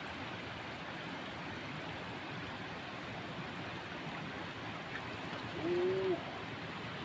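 Steady outdoor background hiss, with one short, low-pitched call about six seconds in.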